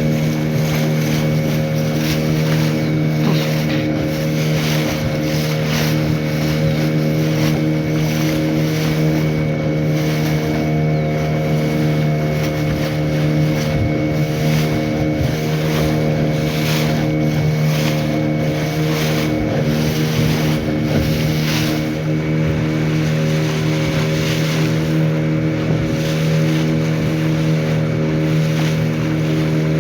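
A boat's motor running steadily at a constant speed, a low even hum, with water and wind noise over it.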